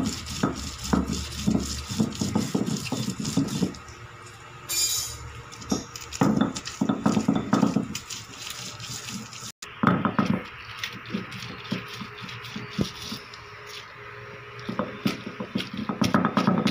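Stone roller (kuzhavi) worked back and forth over a flat grinding stone (ammi), crushing sautéed onion, tomato, garlic and spices into masala paste: repeated scraping and knocking of stone on stone, coming in bursts of strokes.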